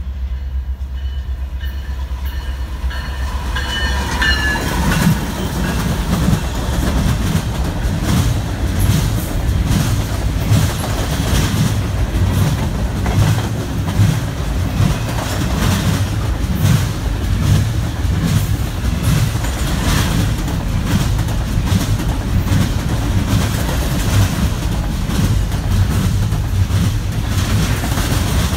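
BNSF diesel freight locomotives approach with a low engine rumble, then a double-stack container train rolls past close by. Its wheels clack steadily and rhythmically over the rail joints as the cars go by.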